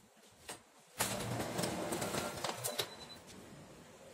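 Canon imageRUNNER 5050 photocopier running off a single test copy: about a second in, its feed and print mechanism starts up with a noisy whir and several clicks, dying down after about two seconds.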